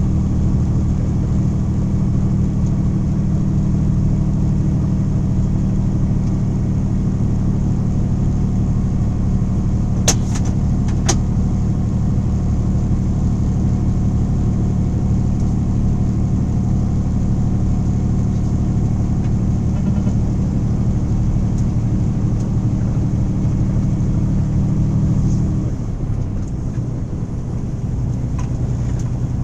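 A truck engine running steadily at road speed, heard from inside the cab as a low, even drone. About 26 seconds in, the engine note changes and drops a little. Two sharp clicks come about a second apart near the middle.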